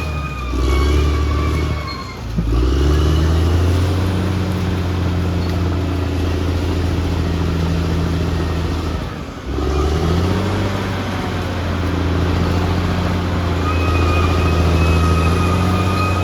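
Caterpillar D6R XL bulldozer's diesel engine running under load. The engine note sags and recovers twice, about two seconds in and again about nine seconds in. A steady high whine is present at the start and returns near the end.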